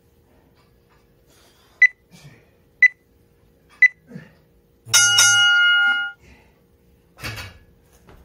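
Gym interval timer counting down: three short high beeps a second apart, then a longer, lower beep that marks the end of the work round.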